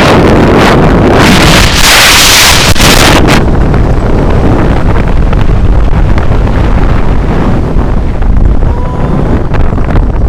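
Loud wind buffeting the microphone in the airflow of a paragliding flight. It hisses strongly for the first three seconds or so, then drops to a lower, duller buffeting.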